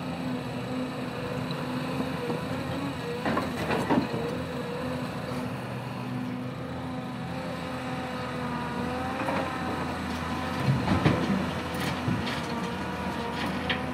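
Hyundai crawler excavator's diesel engine running under load with a steady drone and a wavering hydraulic whine as the arm works. Knocks and clatter of soil and stones come through, loudest about three-quarters of the way in as the bucket tips its load into the dump truck's bed.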